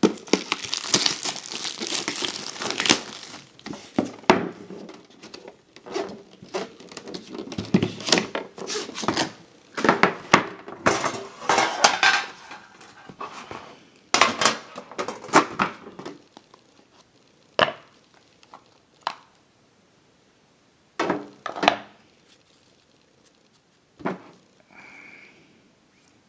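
Plastic wrapping being torn and crumpled off a sealed box of trading cards, with knocks and rustles as the box is handled and opened. Busy at first, then only scattered separate clicks and knocks after about sixteen seconds in.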